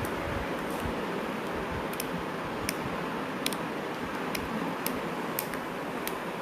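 Scissors snipping through thin cardboard to enlarge finger holes: short, sharp snips at irregular intervals, roughly once a second, over a steady background hiss.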